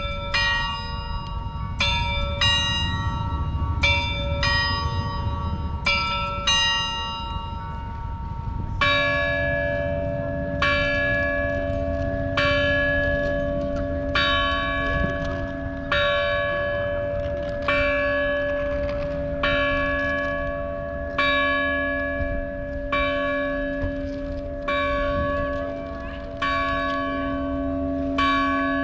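Church bells ringing: a higher bell struck in quick, uneven strokes for about the first nine seconds, then a deeper bell takes over and tolls steadily, about one stroke every two seconds, its hum ringing on between strokes.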